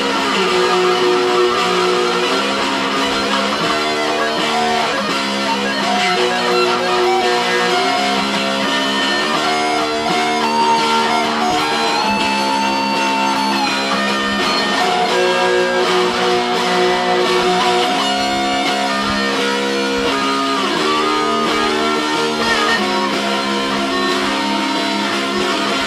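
Two electric guitars playing an instrumental duet: a chord progression that changes every second or two, with a lead line above it. About halfway through comes a sustained note that bends in pitch.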